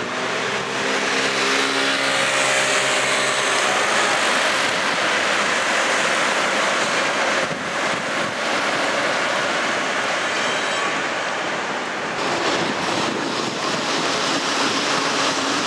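Steady rolling noise of passing vehicles, with a low drone of several steady pitches over the first four seconds that then fades into the general noise.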